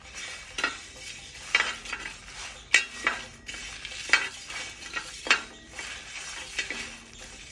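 A spoon stirring and scraping through spices, urad dal and tamarind dry-roasting in a pan, with about one sharp scrape a second.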